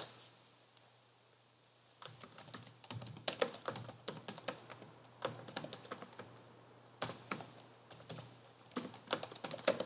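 Typing on a computer keyboard: two runs of quick key clicks, a class name being typed, with a short pause between them. A single click comes under a second before the first run.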